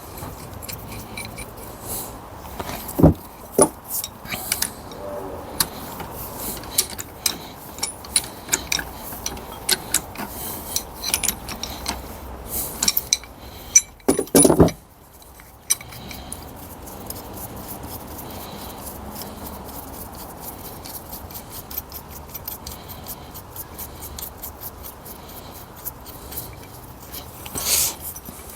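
Metal gearbox parts and hand tools clinking, tapping and scraping against each other: scattered sharp knocks in the first half, then a fast run of light ticks in the second half.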